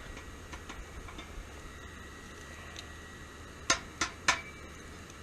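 Three sharp clinks of metal cookware in quick succession about three and a half seconds in, over the steady hum of a Biolite wood-burning camp stove running with its fan on, with a few faint ticks from the fire.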